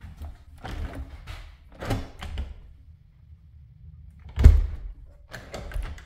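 A window being worked by its lever handle: a few rattling clatters, then one heavy thud about four and a half seconds in as the sash shuts against the frame, followed by a couple more clatters.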